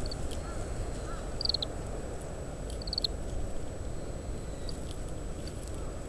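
Oriental greenfinch contact calls: short, quick clusters of high notes, three or four times, over a steady low rumble of wind.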